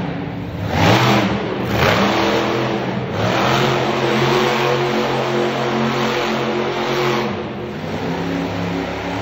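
Bone Shaker monster truck's engine revving hard as the truck drives and turns. The pitch climbs about a second in and again about three seconds in, holds high for several seconds, then drops back near the end.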